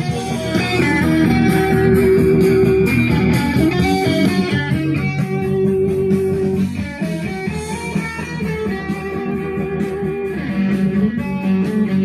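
Recorded rock music, an instrumental guitar break with electric guitar over bass, played back through a home stereo amplifier.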